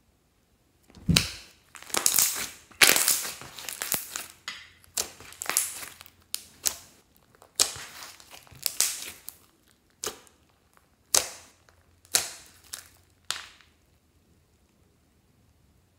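Slime with makeup and glitter mixed in, being squeezed, kneaded and stretched by hand, making a string of short, sharp sounds that start about a second in and stop a couple of seconds before the end.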